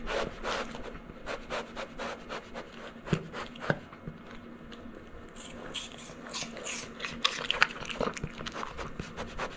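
Red panda nosing and sniffing at the wire guard around the camera, right against the microphone: a close, irregular run of scratchy rubs, clicks and breathy sniffs.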